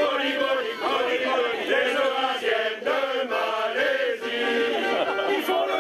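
Male choir singing a sailors' song together, several strong voices in chorus.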